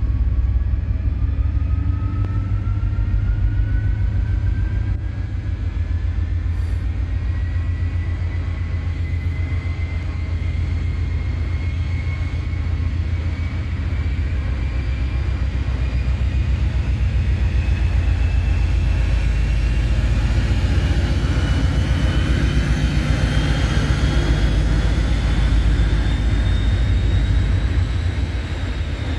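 Class 56 diesel-electric locomotive, with its Ruston-Paxman 16-cylinder engine, pulling away under power with a heavy low throb. A high whistle climbs steadily in pitch throughout as the engine works harder.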